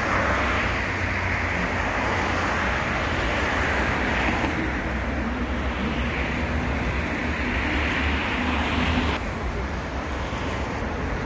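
Steady road traffic noise from cars on a multi-lane city road, a continuous rush with no distinct events. Its character shifts abruptly twice, about four and a half and nine seconds in.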